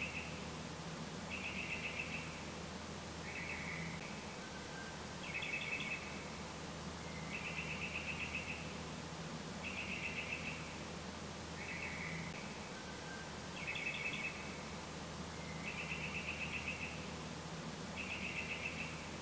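Short trilled animal calls, each about a second long and made of rapid pulses, repeating about every two seconds over a steady low hum.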